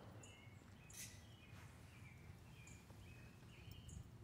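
Near silence: quiet outdoor background with a few faint, short, high chirps of distant birds scattered through it.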